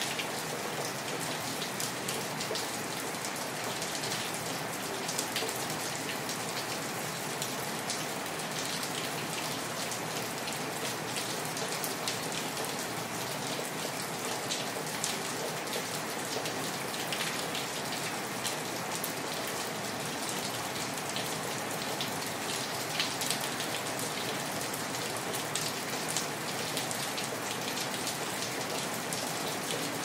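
Steady rain falling, an even hiss dotted with many small taps of individual drops.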